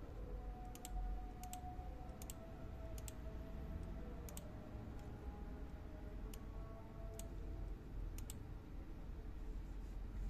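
Computer mouse button clicking about a dozen times at irregular intervals, many as quick press-and-release pairs, over a faint low hum. The clicks stop about two seconds before the end.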